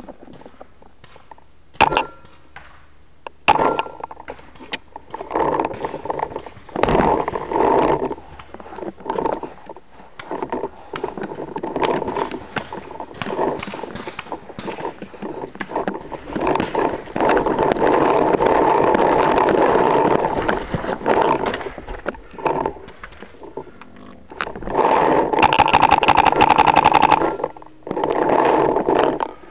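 Rustling and scraping of movement on a carried camera's microphone, in irregular bursts, with a longer unbroken stretch past the middle and a harsher one near the end.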